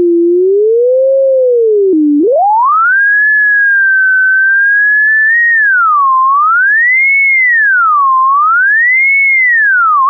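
A computer-generated sine tone, frequency-modulated by a slow 0.5 Hz oscillator, so its pitch wavers up and down in a two-second cycle around a 440 Hz carrier. About two seconds in, the pitch glides sharply up as the carrier frequency is raised, holds high, and then swings widely between low and high every two seconds as the modulation index is increased.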